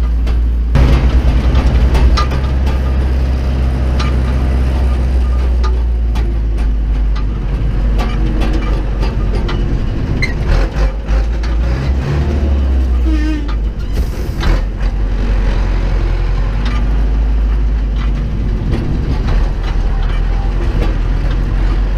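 Zetor 7745 tractor's four-cylinder diesel engine running under way, heard from inside the cab, getting louder about a second in, with frequent clicks and knocks from the cab rattling over the track.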